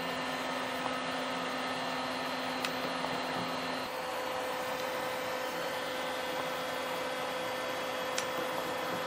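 Mini lathe running steadily, its motor and spindle giving a constant hum with a steady tone that shifts in pitch about four seconds in. A couple of faint ticks sound over it.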